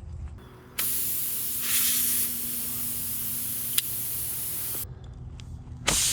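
Air hissing out of a punctured car tire through the nail hole. It starts about a second in and stops abruptly about five seconds in, with a sharp click partway through, then starts again near the end.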